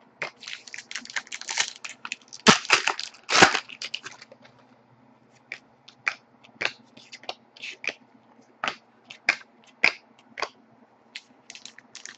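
Panini Pinnacle hockey cards being handled and flipped through one by one, each card snapping and sliding against the next. A dense run of rustling clicks comes first, then separate sharp snaps about every half second to second.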